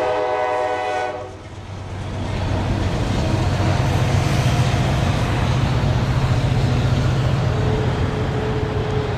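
A train horn chord ends about a second in, then a freight train of autorack cars rolls past with a steady rumble and wheel noise.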